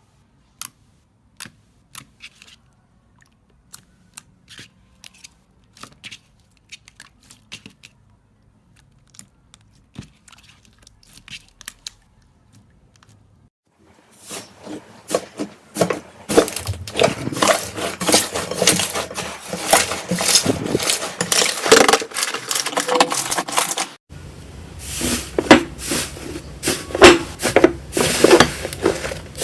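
Slime being squeezed and stretched by hand, making sticky pops and clicks: scattered single pops at first, then a dense run of crackling from about halfway, with an abrupt change near the end.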